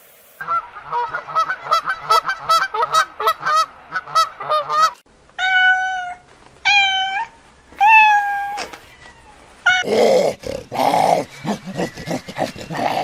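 Domestic cat vocalising: a quick run of short, high calls, then three drawn-out meows about a second apart, then rougher, noisier sounds near the end.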